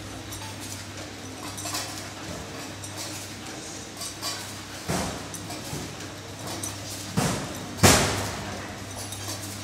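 Three-side-sealing sachet packing machine running: a steady low hum with light clicking from its sealing and cutting mechanism. Several sharper clacks come in the second half, the loudest about three-quarters in.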